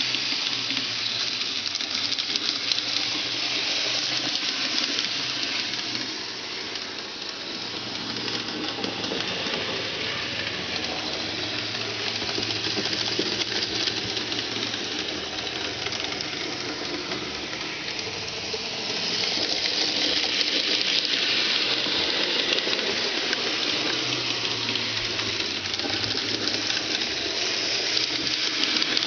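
N-gauge model train running on its track: a steady whirring and rattling hiss of the small motor and wheels, swelling and fading.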